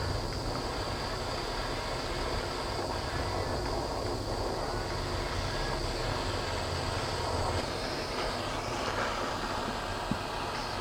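Steady running of a small power tool working brass parts, with a thin high whine held throughout.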